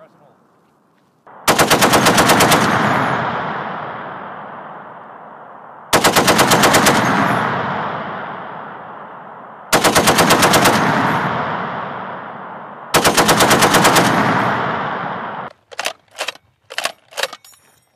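M2 .50-caliber heavy machine gun firing four bursts of about a second each, the rapid shots evenly spaced, each burst followed by a long echo rolling off across the range. A few separate sharp clicks follow near the end.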